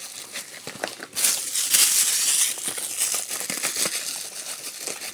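Plastic shopping bags crinkling and crackling as they are crumpled and stuffed into a taped paper squishy as filling, loudest for a second or so about a second in.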